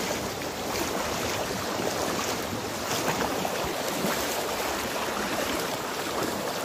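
Fast-flowing shallow river rushing over rapids: a steady noise of running water.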